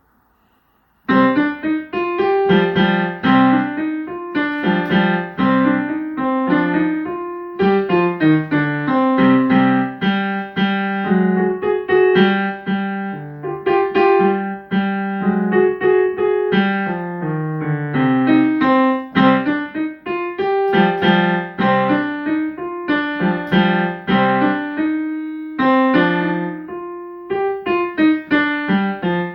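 Piano being played, a simple piece of separate struck notes with a lower part under the melody, starting about a second in.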